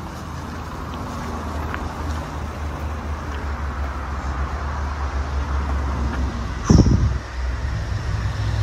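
Road traffic: a small van's engine and tyres passing on a narrow road, leaving a steady low rumble, with a brief loud burst of noise about seven seconds in.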